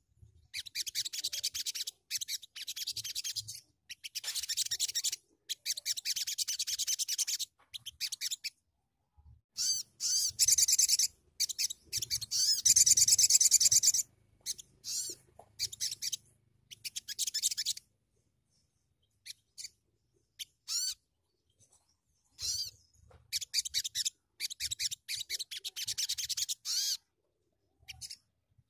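A sogon (sogok ontong) sunbird singing: phrases of rapid, high-pitched twittering, each one to two seconds long, with short pauses between them. Past the middle there is a pause of several seconds before the song starts again.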